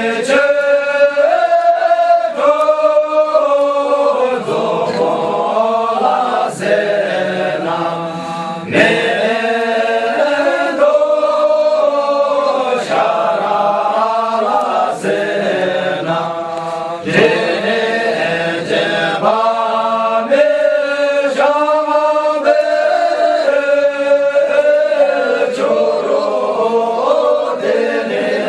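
A group of men singing together in unison in a slow, chant-like style: long held notes that step up and down in pitch, in phrases broken by short pauses.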